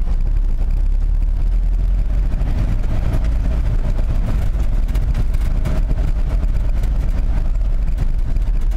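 Vehicle driving over a rough dirt track: a steady, loud low rumble of engine and wheels, with frequent small knocks and rattles as it goes over bumps.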